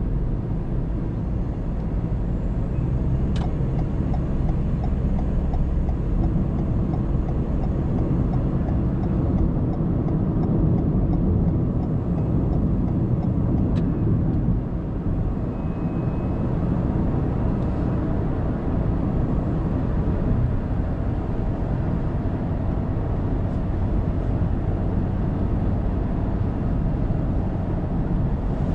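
Car driving at speed on an expressway, recorded by its dashcam: steady, low tyre and engine rumble, with a couple of faint clicks.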